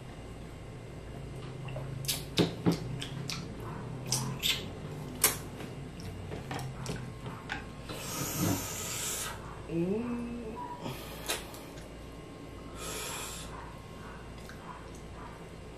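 Close-miked mouth sounds of a man eating and drinking: wet chewing and lip-smacking clicks, a few breaths through the nose lasting about a second each, and a brief hummed 'mm' about two-thirds of the way through.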